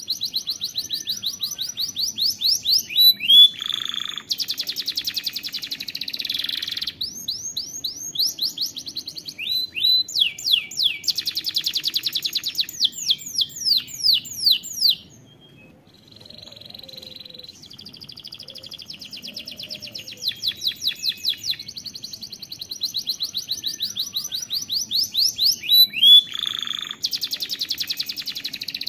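Domestic canary singing a long song. Runs of fast, rapidly repeated sweeping whistled notes alternate with denser rolling trills, and the song breaks off for about a second midway before starting again.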